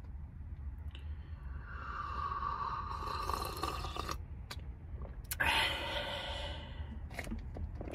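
A person sipping a drink from a tumbler, with a sharp click a little past the middle, over a low steady rumble.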